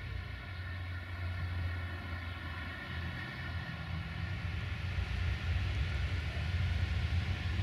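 Diesel locomotive engine running, heard from a distance as a steady low drone with a higher whine over it, growing slightly louder toward the end.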